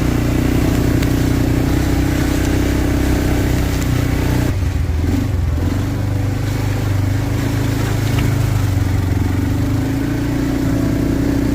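A vehicle engine running steadily with a low, even hum, with only small shifts in its pitch.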